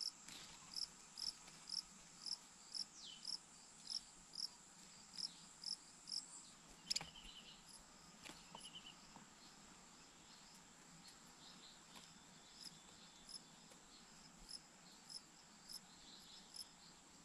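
Cricket chirping in short, high, evenly spaced chirps, about two a second, growing sparser and fainter about halfway through, over a constant thin high-pitched insect whine.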